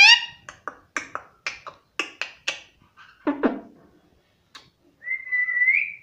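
Indian ringneck parakeet vocalising: a gliding squawk at the start, then a run of short, sharp clicks, a lower call about three seconds in, and a held whistle that rises slightly near the end.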